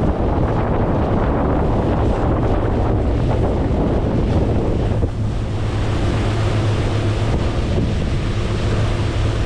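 Wind buffeting the microphone on an open fishing boat at sea, with a steady low hum from the boat's engine underneath.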